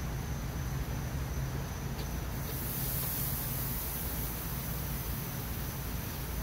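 Steady low hum of a propane smoker's burner running, with a high, steady hiss of insects in the trees that comes in about two and a half seconds in.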